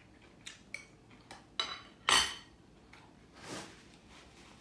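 A few light clinks of cutlery on china plates, then a louder brief rustle of a paper tissue being handled about two seconds in, and a softer rustle a little later.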